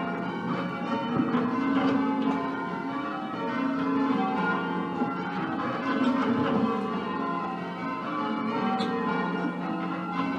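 A ring of ten church bells, tenor 13 cwt in F, cast by Mears & Stainbank, Gillett & Johnston and Whitechapel, being rung in changes: bells struck one after another in a rapid, even rhythm, overlapping tones hanging on.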